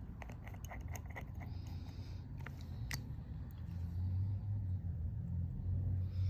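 Light clicks and taps of small tools against phone parts during repair work, a quick run of them in the first half. Under them runs a steady low hum that grows louder about four seconds in.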